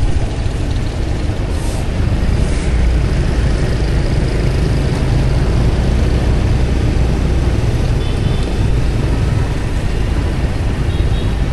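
Motorbike riding in town traffic: the steady sound of the engine and road noise with a low rumble, other motorbikes running close by.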